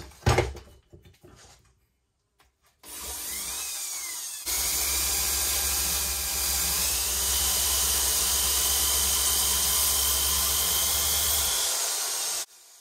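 Electric drill spinning a wire brush that drives a loop of Abranet abrasive cloth round a stainless steel exhaust pipe, sanding down the welds. A single knock comes near the start. The drill starts about three seconds in, gets louder a second and a half later, runs steadily, and stops shortly before the end.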